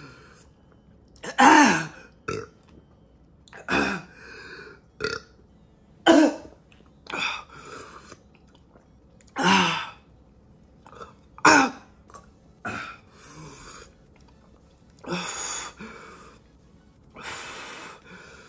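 A man's pained throat noises from the burn of an extremely hot pepper chip: short grunts and belch-like groans every second or two, some sliding in pitch. Near the end come two longer, breathy exhales.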